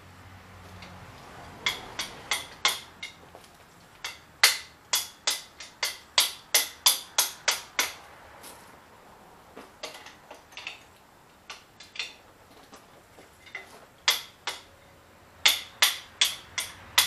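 Hand-lever grease gun pumped at a pin of a Diggit EM15 mini excavator's bucket linkage: sharp metallic clicks, about three a second, in runs of several strokes with short pauses between.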